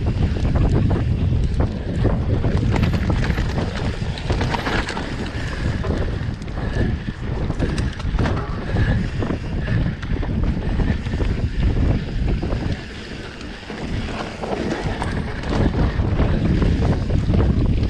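Wind buffeting the microphone of a camera carried along an enduro trail at riding speed, with frequent knocks and rattles; it eases briefly about 13 seconds in.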